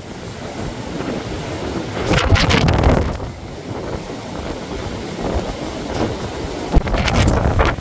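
Blizzard wind gusting and buffeting the microphone, with strong gusts about two seconds in and again near the end.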